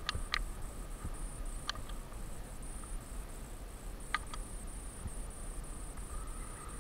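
Insects trilling in the grass, a steady high pulsing buzz, with a few sharp clicks and taps as a bass is handled on a plastic measuring board.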